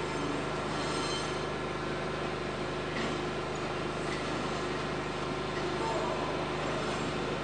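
Steady low mechanical hum of trains standing idle, over a constant background rush.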